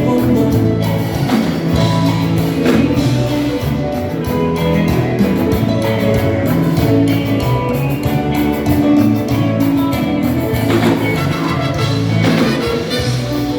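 Live band playing an instrumental passage of a Latin dance song, with no vocals: a steady beat under sustained instrumental notes.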